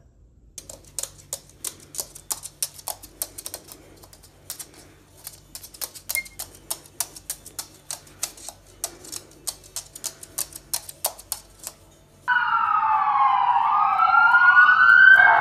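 Quick, irregular clicking or tapping, several clicks a second, then near the end a sudden loud wailing of several tones sliding up and down in pitch.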